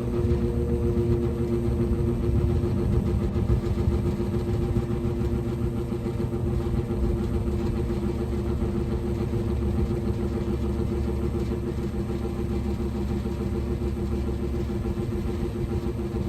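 Vintage GE W25 box fan running steadily: an electric motor hum with air rushing through the blades. Its dry, unlubricated motor bearings are being worked free by running it on medium and low.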